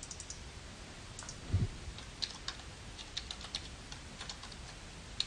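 Computer keyboard keystrokes, irregular and unhurried, as a project name is typed, with a soft low thump about one and a half seconds in.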